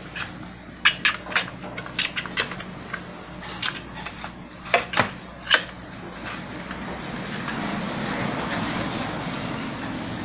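Hard plastic clicking and tapping as a thermostat's capillary tube is worked into a refrigerator's plastic thermostat housing. It is a quick run of sharp clicks, loudest near the middle. In the second half a steady rushing noise builds underneath.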